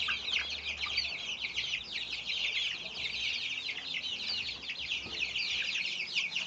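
A flock of young Silkie chicks, a few weeks old, peeping continuously: many high, short, falling cheeps overlapping without a break.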